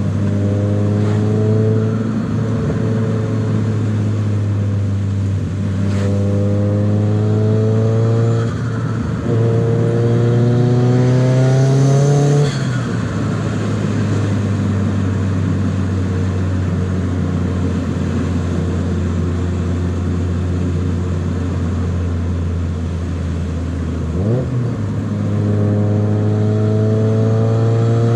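Nissan 200SX S14a's turbocharged SR20DET four-cylinder accelerating in several pulls through the gears, its pitch rising with each, and holding a steadier note in between. Near twelve seconds in the throttle lifts with a short hiss of turbo flutter, and a quick rev comes about twenty-four seconds in.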